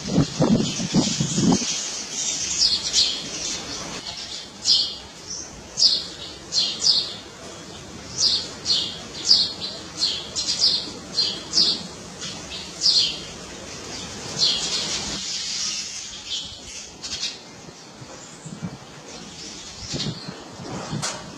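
Small birds chirping in quick, sharp, repeated calls, each one dropping in pitch, about two a second through the middle, with a brief flutter of wings at the start.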